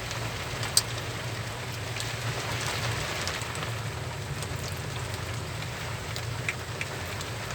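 Strong rain pouring steadily, with scattered sharp drop ticks, one louder about a second in, over a steady low hum.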